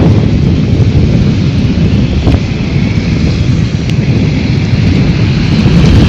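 Wind buffeting the microphone: a loud, gusty low rumble that dips slightly in the middle, with two faint clicks.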